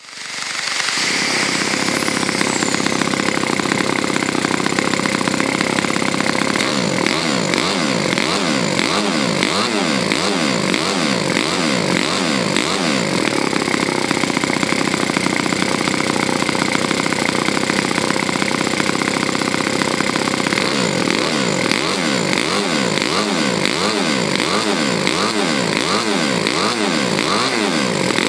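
OS FS-40s single-cylinder four-stroke glow model engine, bored out to 8.3 cc and fitted with larger valves and a ported head, running steadily at high speed on its first run in this form. The sound fades in over about the first second.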